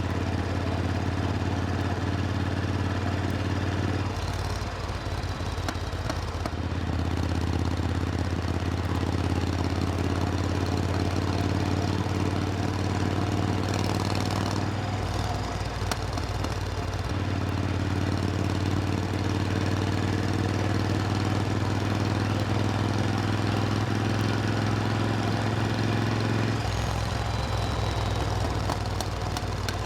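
Supercharged Triumph Thunderbird Storm parallel-twin motorcycle engine running steadily under way, its note shifting briefly three times, about four seconds in, midway and near the end.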